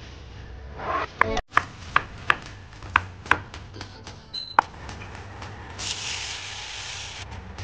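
A knife chopping garlic on a wooden cutting board, about seven sharp, uneven chops. Near the end, seasoned chicken pieces dropped into hot oil in a pan sizzle for about a second and a half.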